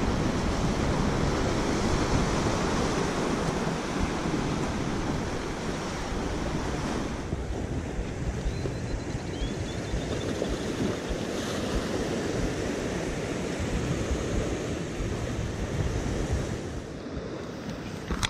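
Ocean surf washing and breaking over coastal rocks, a continuous rushing, with wind buffeting the microphone.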